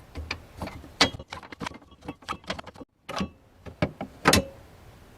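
Irregular clicks, knocks and rattles from the spare-tire fittings in a car's trunk being unscrewed and handled, with the loudest knock a little after four seconds in.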